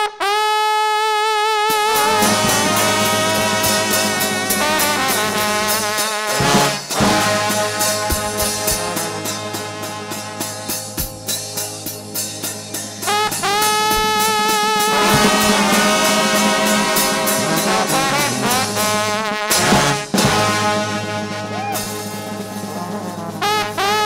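Trombone shout band playing gospel music. A massed brass section opens on a held note with a wide vibrato, and about two seconds in a steady bass line and the full band come in.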